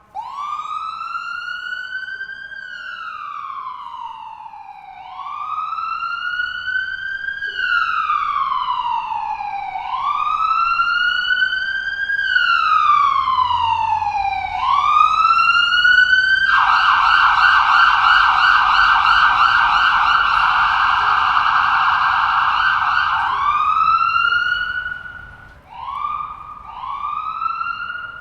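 Electronic ambulance siren in wail mode, rising and falling in slow sweeps about every five seconds and growing louder. About two-thirds of the way through it switches to a fast yelp for about seven seconds, then gives several short rising whoops near the end.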